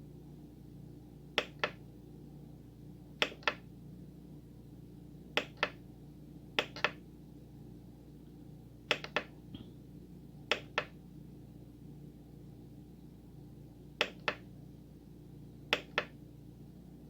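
Front-panel buttons of a Korg N264 keyboard being pressed, eight sharp double clicks a couple of seconds apart as the edit screens are stepped through, over a low steady hum.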